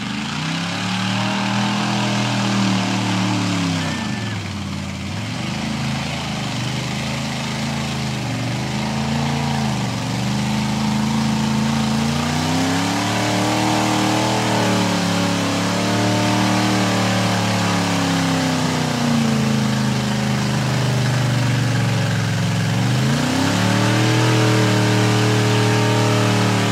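Lifted Chevrolet S-10 mud truck's engine revving up and down over and over as it pushes through a mud bog pit, the pitch climbing and falling several times.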